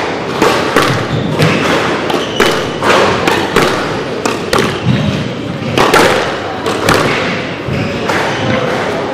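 Squash rally: repeated sharp hits of the ball off rackets and off the court walls, coming every half second to a second.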